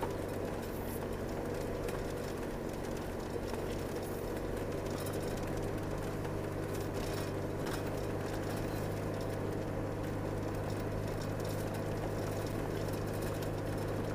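Car engine running at a steady pitch with tyre and road rumble, heard from inside the moving car's cabin.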